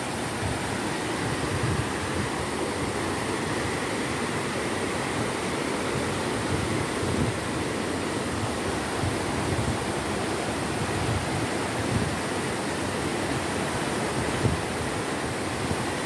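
Steady rush of river water spilling over small rock cascades, an even hiss with no pauses.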